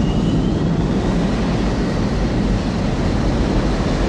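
Steady, loud rushing noise of a jet fighter in flight.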